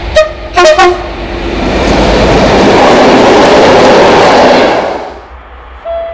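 A locomotive's horn sounds two short blasts, then the train passes at speed with a loud, swelling rush of noise that dies away about five seconds in. A brief horn-like tone comes just before the end.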